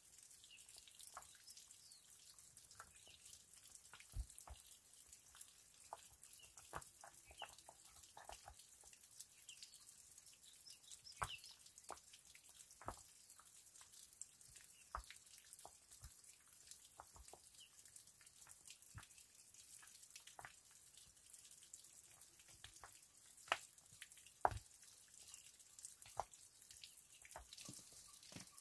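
Quiet, irregular small knocks and taps, a few of them louder about three quarters of the way through, over a faint high hiss.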